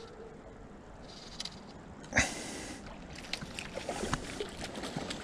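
Creek water running steadily, with a sudden loud splash about two seconds in and scattered light ticks and taps after it.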